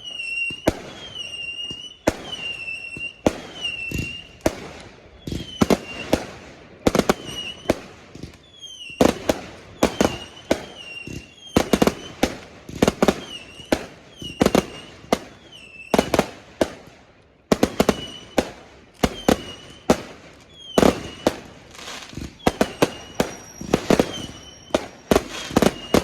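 Fireworks going off in a long string of sharp bangs, each often followed by a short whistle; the bangs come thicker and faster from about a third of the way in.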